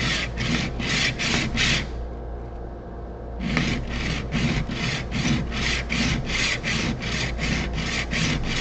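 A chipped steel blade rubbed back and forth by hand on a sharpening block in quick, even scraping strokes, about three a second, with a short break about two seconds in. It is grinding down an edge with bites out of it.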